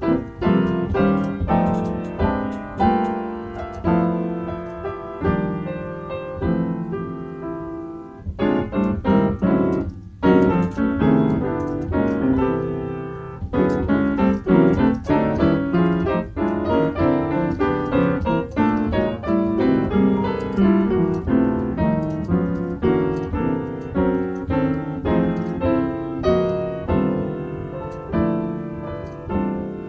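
Solo piano playing an improvised passage of chords under a melody, the notes struck and dying away in a continuous flow, with a brief break about ten seconds in before a loud chord.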